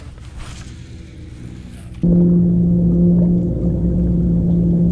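Faint wind and water noise, then, about two seconds in, a steady low hum with a few overtones starts abruptly and holds: a bass boat's electric trolling motor running.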